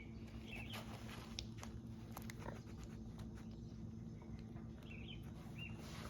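Faint clicks and light rattling of a child's car-seat harness buckle being fumbled, over a steady low hum, with a few faint short high chirps.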